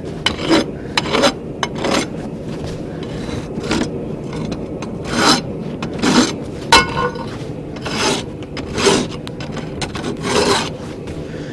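An old farrier's rasp filing hot steel in repeated strokes at an uneven pace, some short and some longer, smoothing sharp edges and burrs off the piece.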